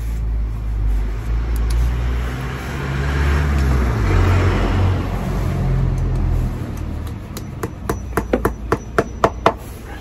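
A passing vehicle rumbles, swelling and fading over the first seven seconds. Then a claw hammer taps plastic wall plugs into holes drilled in brickwork: about ten sharp taps in quick succession near the end.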